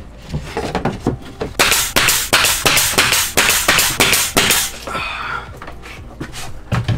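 Pneumatic nail gun firing a quick run of nails into the ceiling boards, about five sharp shots a second for roughly three seconds, with a few lighter knocks before it.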